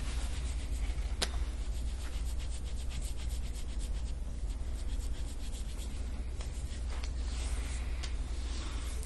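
Metal soft-tissue scraping tool rasping over the bare skin of the upper back in quick, repeated strokes. A sharp click about a second in.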